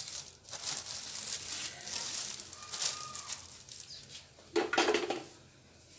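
Plastic cling film crinkling and rustling as it is pulled and pressed over a metal pan of dough balls, with a louder, brief rustle near the end.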